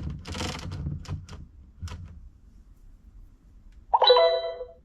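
Fisher-Price Linkimals Learning Narwhal electronic toy: a short noisy burst and a few sharp clicks in the first two seconds, then a pause, then its speaker starts a pitched electronic sound about four seconds in.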